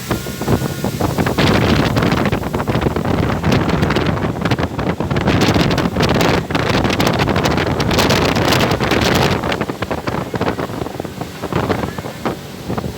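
Wind buffeting the microphone on a moving motorboat, over the rush of water and the boat's running noise. It keeps a steady, loud level, dipping briefly now and then.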